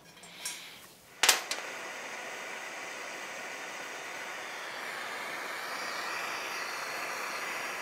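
Handheld gas torch lit with a sharp pop about a second in, then its flame hissing steadily as it heats a corroded exhaust stud in an aluminium cylinder head to free it.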